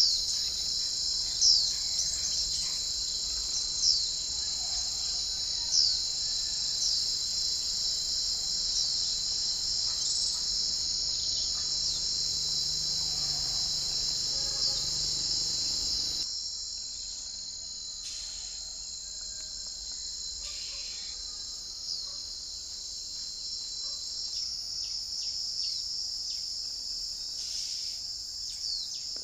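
A steady, high-pitched drone of insects. Over it, a small bird gives short, sharp chirps about every two seconds at first, then only now and then and more faintly.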